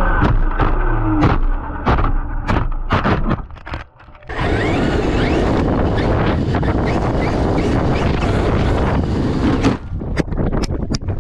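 Radio-controlled monster truck driving over rough ground. Sharp clattering knocks run through the first few seconds, then a short break, then about five seconds of a steady rush of tyres and motor with a whine that rises and falls, and more knocks near the end.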